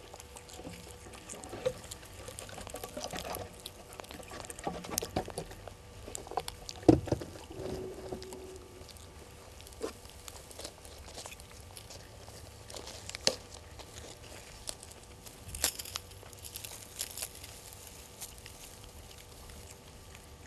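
Dry leaves and twigs crackling and rustling as a vervet monkey forages through leaf litter with its hands, in scattered small clicks and rustles. A louder single thump about seven seconds in.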